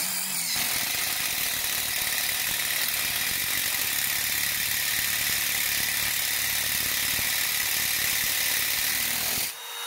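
DeWalt DCF887 20V brushless impact driver running steadily and hammering as a hex-shank drill bit bores into 304 stainless steel. It is impacting against the rising resistance of the deepening hole while the bit dulls, and it stops suddenly near the end.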